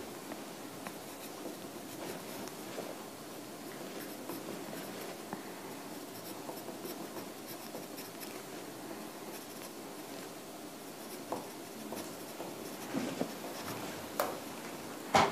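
Writing by hand on paper: a steady scratching of the pen tip, with a few light knocks in the last few seconds.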